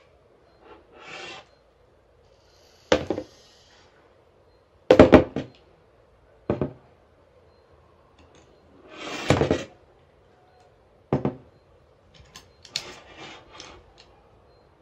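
Handling sounds of a DSLR camera and its quick-release plate being fitted onto a handheld gimbal stabilizer on a wooden table: a string of separate knocks and clicks, the loudest a quick cluster about five seconds in, and a short scraping slide about nine seconds in.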